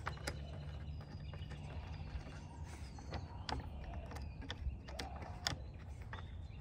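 Scattered sharp clicks and light creaks of a plastic roof rail and its trim clips being pressed into the roof channel of a 2017 Chrysler Pacifica, over a steady low rumble.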